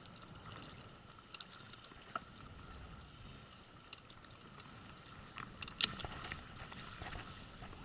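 Quiet sea ambience on a small inflatable boat: light wind and water, with a faint steady tone. Small clicks come from a baitcasting reel being handled as a tai-rubber lure is let sink, and one sharper click sounds about six seconds in.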